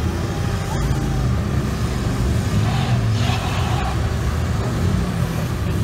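Engines of extreme-trial 4x4 buggies running as they climb a steep, loose rocky slope, a steady low-pitched sound, with a short burst of hissing noise about three seconds in.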